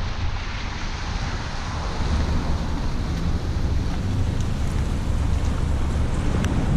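A car driving on rain-wet streets: a steady low road rumble and tyre hiss, with wind buffeting the microphone. It grows a little louder about two seconds in.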